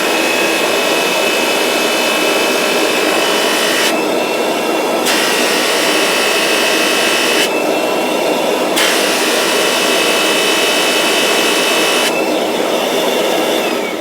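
Kirby Avalir vacuum running with its mopper brush roll fitted, making a steady grinding noise with a high whine that cuts out briefly a few times. The owner puts the grinding down to the brush-roll tray vibrating and rubbing against the brush roll, not to the brush roll's design. It begins winding down with a falling tone at the very end.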